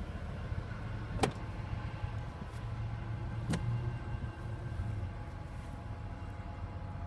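Distant diesel freight locomotive approaching, a steady low engine rumble that swells slightly through the middle, with two sharp clicks about a second and three and a half seconds in.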